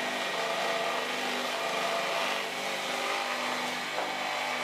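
Electric motor and its belted-together generator running at a steady speed, giving an even hum with a higher whine above it.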